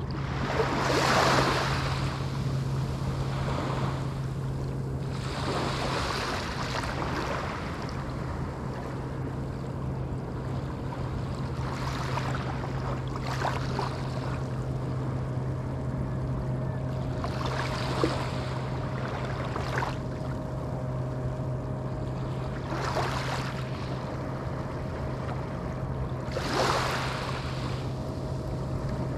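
Small Atlantic waves breaking on the shore, a soft surge of surf every few seconds, over a steady low hum.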